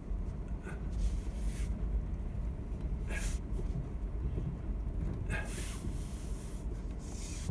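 Vehicle running with a steady low rumble, interrupted by a few short hissing noises.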